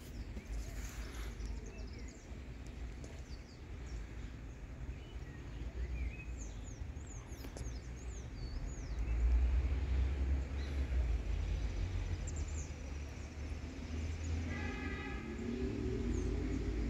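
Outdoor park ambience: a steady low rumble with scattered short bird chirps, and a brief trilling call about three-quarters of the way through.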